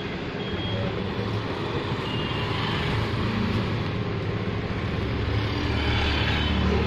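Steady background road-traffic noise, with a low rumble that grows louder in the second half and a few brief high tones.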